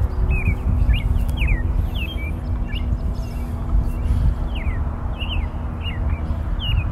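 Small birds chirping: short falling chirps, several a second, scattered throughout. Under them runs a steady low rumble, louder than the chirps, of the kind made by flowing water or wind.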